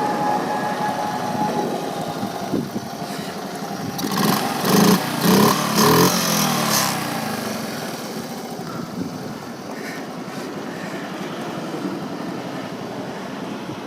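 1969 Honda Monkey's small single-cylinder four-stroke engine running, with three short louder revs between about four and seven seconds in, then settling back to a steadier run.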